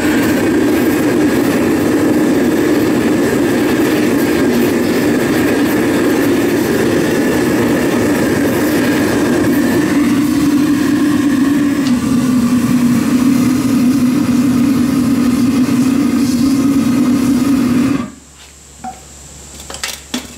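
Gas burner of a metal casting furnace running at full flame while the furnace preheats, a loud steady rush with a faint steady whistle above it; the sound shifts slightly around ten to twelve seconds in. It cuts off suddenly about eighteen seconds in, leaving a few faint knocks.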